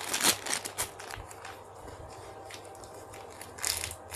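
Crinkling and rustling as a squishy toy is handled, with a cluster of crackles in the first second and another near the end.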